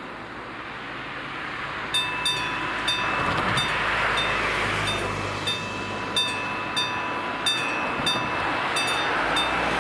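Level-crossing warning bell of an AŽD 71 crossing signal starting to ring about two seconds in, sounding a ringing ding about every two-thirds of a second as the crossing warns of an approaching train. Cars pass over the crossing on the wet road, with steady tyre noise.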